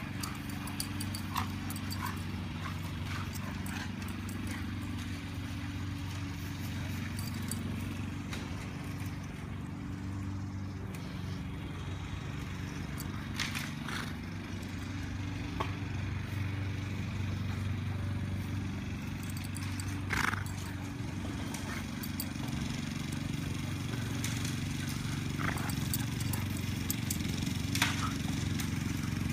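Golden retriever and Irish wolfhound play-fighting on grass: scuffling and pawing, with a few short sharp sounds, the loudest about twenty seconds in. Underneath runs a steady low hum.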